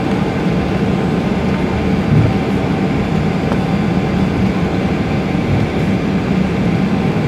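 Steady cabin rumble of a Boeing 737-900ER taxiing, its engines and airframe making a constant low drone, with one short thump about two seconds in.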